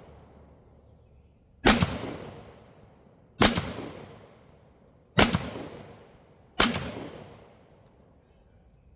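Sulun Arms SG105 semi-automatic bullpup shotgun firing four shots in steady succession, about one and a half to two seconds apart. Each shot is a sharp report that echoes away over about a second.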